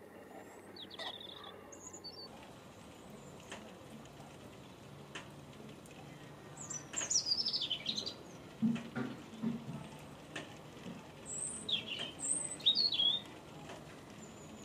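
Birds chirping: two bursts of quick, high, falling calls, one about halfway through and one near the end, over a steady outdoor hiss with a few faint knocks.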